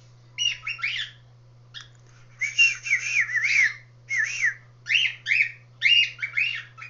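Cockatiels calling: bursts of quick whistled chirps that bend up and down in pitch, in several short phrases with brief pauses between them.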